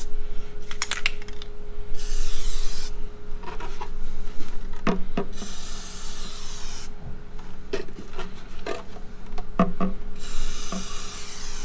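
Aerosol can of Plasti Dip rubber coating spraying in several separate hissing bursts of one to two seconds each. Light taps and knocks come between the bursts as the plywood box is handled.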